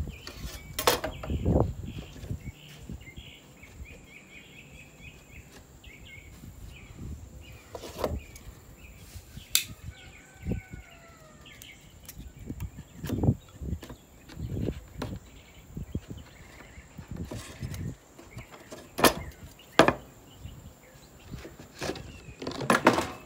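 Scattered knocks and taps of plywood boards and a hand saw being handled and set down on the work surface, a cluster of them near the end.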